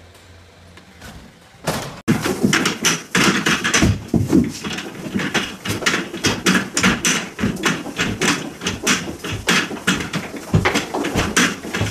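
Rapid, irregular banging and knocking, several sharp hits a second, starting suddenly about two seconds in after a quiet low hum.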